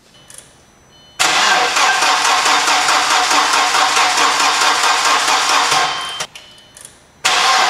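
VW/Audi 1.8-liter turbo four-cylinder engine turned over by its starter with the fuel pump fuse pulled, so it cranks without firing: one crank of about five seconds, then a second starting near the end. Even cranking that sounds like an engine with compression, without clacking, done to build oil pressure before the first start after a cylinder head job.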